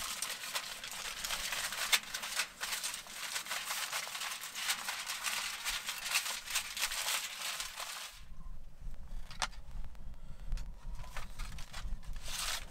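Aluminium foil being crinkled and folded by hand into a boat around a fish fillet: a dense, crackling rustle. About eight seconds in it thins to sparser crinkles and clicks over a low rumble.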